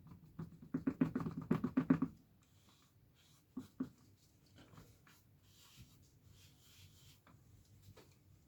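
Rapid rubbing strokes of an applicator working bumper polish into plastic trim, about seven strokes a second for the first two seconds. The rubbing then turns fainter and more scattered, with a couple of light taps.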